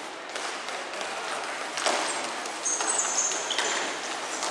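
Ball hockey play on an indoor court: a sharp knock of stick or ball about two seconds in, then from about halfway on, several short high squeaks of players' shoes on the court floor over the hum of the hall.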